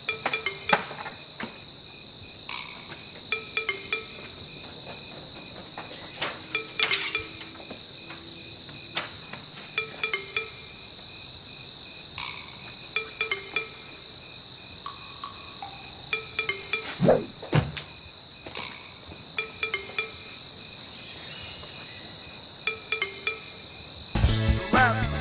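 Crickets chirping steadily, with scattered clicks and knocks over them. Music starts near the end.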